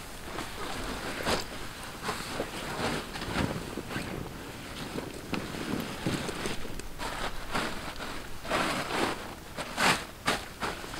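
Rustling and shuffling of a canvas lavvu tent, groundsheet and backpack as a person crawls in and moves gear around, in uneven bursts with a few light knocks.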